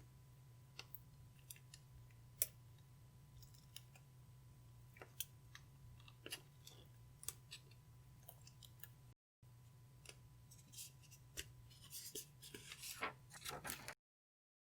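Clear slime being kneaded and stretched by hand, giving faint scattered sticky pops and clicks that thicken into a quick run of crackles near the end, over a steady low hum.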